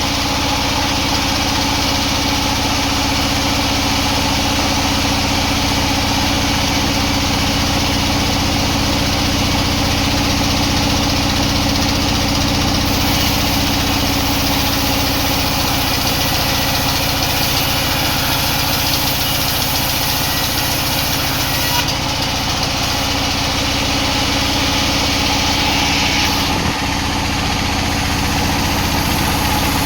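Sawmill machinery running steadily: a constant engine-like hum with a steady hiss above it.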